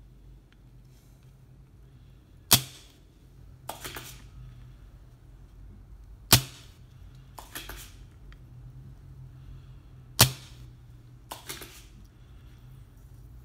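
Three sharp clicks about four seconds apart, each followed about a second later by a fainter cluster of clicks, over a steady low hum.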